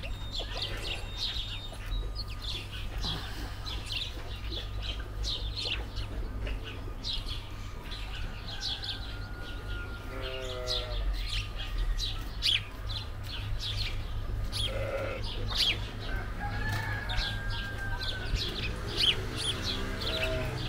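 Small birds chirping over and over in quick short notes, with a chicken clucking briefly about halfway through and again near the end.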